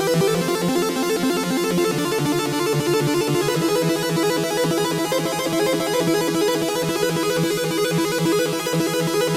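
Novation MiniNova synthesizer playing the ShapeShift DF preset: a fast arpeggiated run of short repeating notes with a bright, many-harmonic tone, the note pattern shifting about three and a half seconds in.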